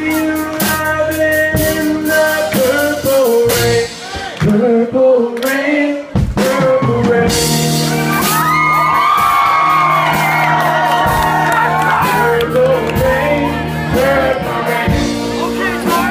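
Live rock band playing with electric guitar, bass guitar and drum kit under a male singer, with high gliding vocal wails about halfway through.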